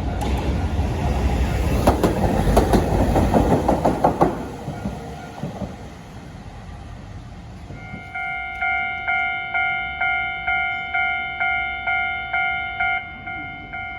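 A Hankai Tramway streetcar passes at a level crossing, its wheels clattering over the rail joints for about four seconds before the noise dies away. About eight seconds in, a Japanese level-crossing warning bell starts ringing, a repeated 'kan-kan' ding about one and a half strikes a second.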